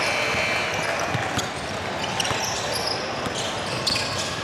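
A basketball bouncing on a gym court during a game, among scattered short knocks and high squeaks over steady court noise.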